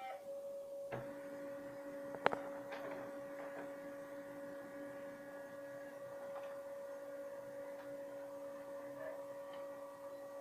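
Samsung SCX-4500 laser printer whistling while it prints a test page: a steady high whistle with a lower hum joining about a second in, and two clicks from the paper mechanism, the sharper one a little after two seconds.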